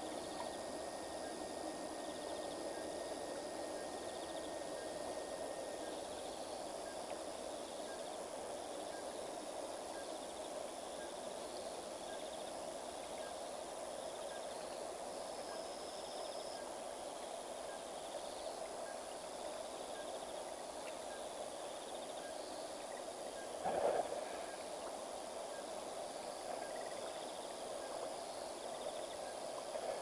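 Night bush ambience: a steady hiss of insects, with one chirp repeating about once a second. A single short, low sound stands out about two-thirds of the way through.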